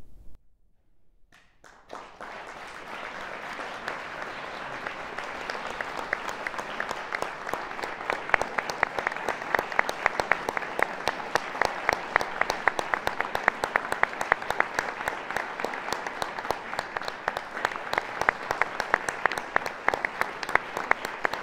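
Audience applause. It starts just under two seconds in after a brief hush and builds, with sharp individual claps standing out more in the second half.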